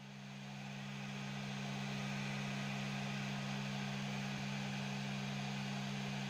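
Steady electrical hum with an even fan-like hiss, fading in over the first second or two and then holding level.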